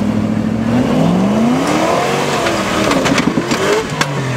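Off-road 4x4 engine revving hard, its pitch rising and falling several times under load, with a few sharp knocks in the second half.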